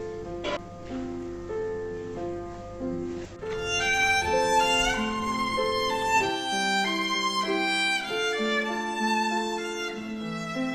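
Background music: a violin melody over light accompaniment, growing fuller and louder about three and a half seconds in.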